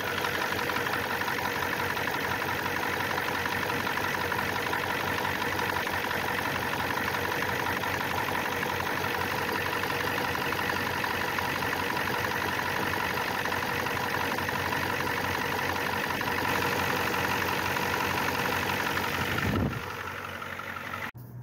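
Ford 7.3-litre IDI turbo-diesel V8 of a 1994 F250 idling steadily, then cutting off near the end.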